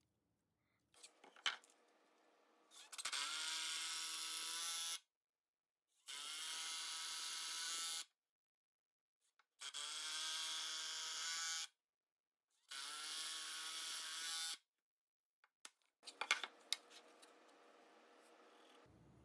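Power drill-driver running in four bursts of about two seconds each, each spinning up quickly to a steady whine, as it drives screws through a metal TV-mount plate into plywood. Small clicks come between the bursts, and a faint steady hum follows near the end.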